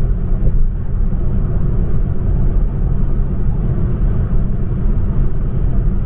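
Car driving on a motorway, heard from inside the cabin: a steady, loud road and engine rumble.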